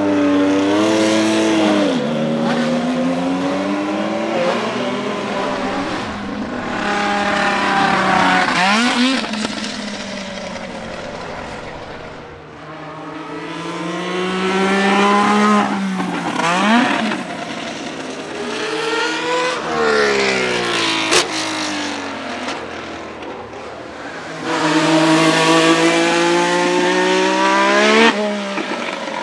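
1979 Renault RS10 Formula 1 car's 1.5-litre twin-turbo Gordini-Renault V6 accelerating hard on several runs past, its pitch climbing through each gear and dropping sharply at the shifts and lifts. A single sharp crack about two-thirds of the way through.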